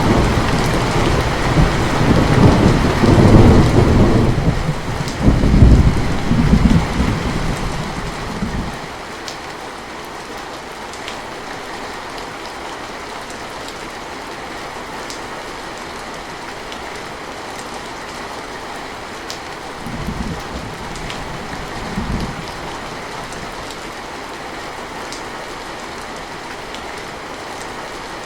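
Steady rain with thunder: a long, loud rumble through the first eight seconds or so, then just the hiss of the rain with scattered drop ticks, broken by two short, fainter rumbles about twenty and twenty-two seconds in.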